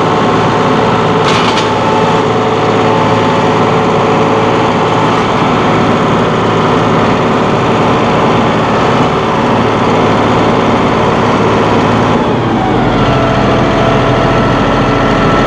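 John Deere 5045E's 2.9-litre three-cylinder diesel running steadily at high revs under opened throttle. About twelve seconds in, it drops in pitch and settles to a lower, steady speed.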